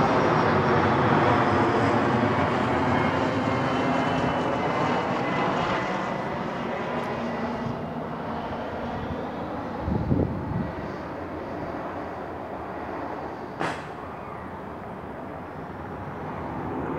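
Airplane on its landing approach flying overhead, its engine noise sweeping past and steadily fading as it moves away. A brief thump comes about ten seconds in and a sharp click a few seconds later.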